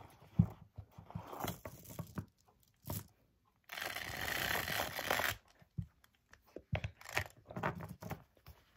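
Handling sounds of a small quilted leather handbag and its gold metal chain strap: scattered clicks and taps of the hardware, with a rustle lasting about a second and a half from about four seconds in.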